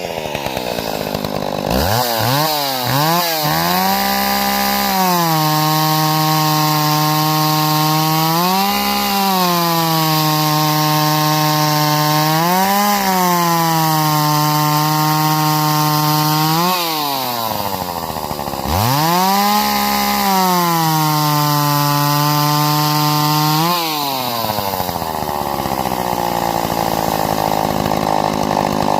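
Homelite 360 57cc two-stroke chainsaw engine running after repair: it is blipped twice, then held at high revs with two brief dips, falls back to idle, is revved up high again for about five seconds, and drops back to idle.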